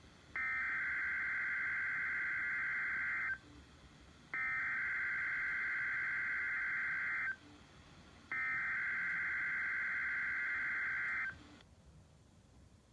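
Emergency Alert System SAME digital header on NOAA Weather Radio: three identical bursts of buzzy, warbling two-tone data, each about three seconds long with about a second's gap between them, marking the start of a new alert.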